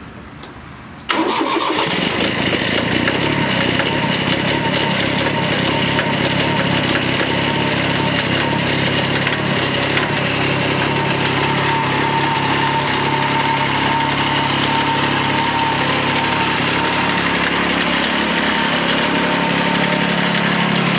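1993 Kubota B7100 compact tractor's small three-cylinder diesel, glow plugs preheated, catching almost at once about a second in after a key click and then running steadily. It is running on a homemade fuel of used frying oil thinned with kerosene and gasoline.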